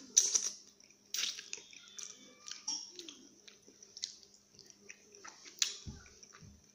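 A person eating chicken feet in spicy rica sauce close to the microphone: wet lip smacks, finger-sucking and chewing in irregular bursts as the tender skin is sucked off the bones.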